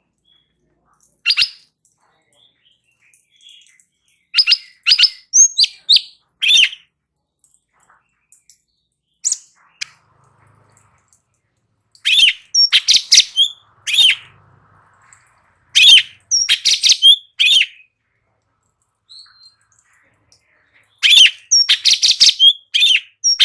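Cucak cungkok songbird singing loud bursts of rapid, chirpy high notes, about six phrases with short pauses between them.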